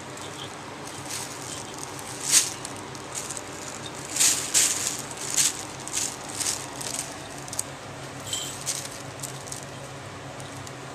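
Thin plastic bag crinkling and rustling in irregular bursts as kittens paw at it and move underneath it, over a steady low hum.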